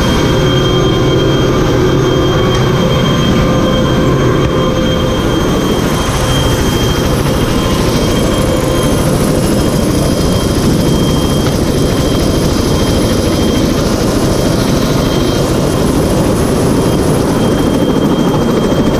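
CH-46E Sea Knight helicopter running on the ground, its twin turboshaft engines and tandem rotors turning: a loud, steady turbine whine over a dense low rotor rumble.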